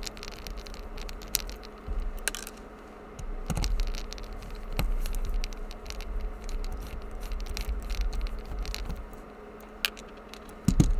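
Small screwdriver unscrewing a screw from a padlock, with scattered light metallic clicks, scrapes and handling noise of the lock in the hands, over a faint steady hum.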